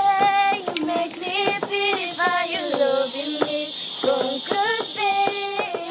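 A high female voice singing a melody in held, wavering notes with short breaks between phrases, over a steady background hiss.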